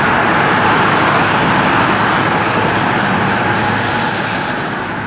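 Steady motorway traffic noise: cars passing on a wet road, with tyre hiss on the wet surface.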